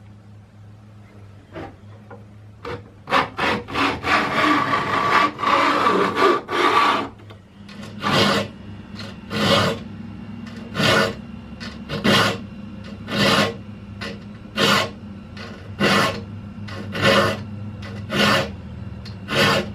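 Metal file rasping across the steel teeth of an antique Disston hand saw, sharpening it. First a run of quick strokes, then slow, even single strokes about one every second.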